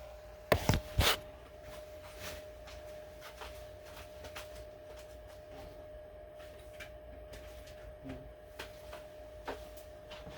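Handling knocks and clicks on a homemade power bank box: three sharp knocks about half a second to a second in, then scattered light clicks over a steady faint hum.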